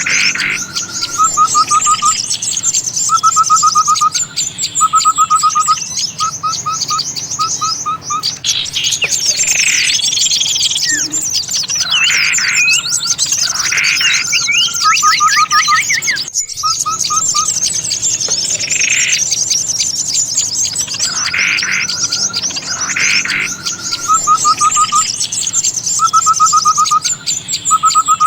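Bird-lure recording for small birds: many small songbirds calling at once, a continuous high chatter over repeated short, rapid trills and louder descending calls. The sequence breaks off briefly about halfway and starts over, as a looped track.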